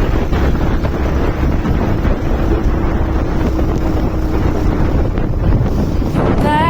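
Wind rushing and buffeting over the microphone while riding a motorbike. Music comes in just before the end.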